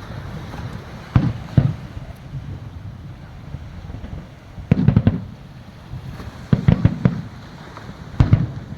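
Aerial fireworks shells bursting in a series of sharp booms, two about a second in, then clusters around the middle and a single one near the end, over a steady low rumble.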